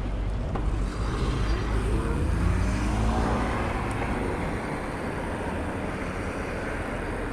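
Street traffic: a motor vehicle passing close, its engine note rising in pitch about two seconds in, over a steady low rumble.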